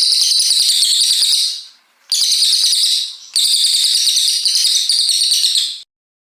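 Cililin coklat, a small songbird, singing three long runs of rapid, high-pitched repeated notes (its 'tembakan', long shots), with short breaks between them; the song stops about a second before the end.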